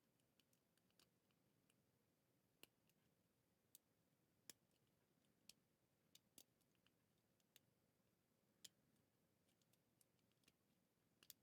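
Very faint, irregular clicks and ticks of a lock pick working the wafers of an old East German wafer padlock held under light tension, about a dozen scattered clicks while feeling for a binding wafer.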